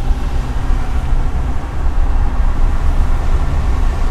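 Steady road noise inside a moving car's cabin: a low rumble from the engine and tyres running on a wet road.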